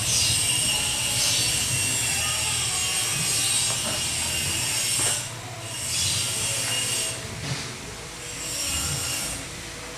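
Small steel trolley's casters rolling and scraping across a floor as it is pushed and turned. The sound is quieter from about halfway through.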